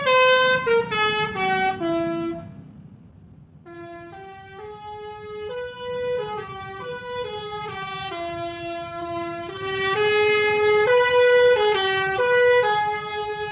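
Bus 'telolet' multi-tone musical horn playing a tune in stepped notes: a falling run in the first two and a half seconds, a short break, then a longer melody that runs to the end.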